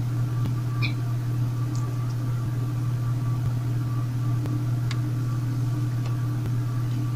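A steady low hum, like a motor or an electrical hum, with fainter higher tones over it and a few faint clicks.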